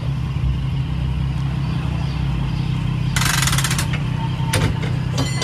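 Motor vehicle engine idling with a steady low hum, and a burst of rapid rattling clicks about three seconds in.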